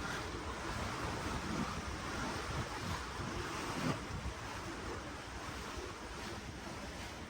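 Sea water washing and churning below a cruise ship in a steady rush, with wind gusting on the microphone in low rumbles.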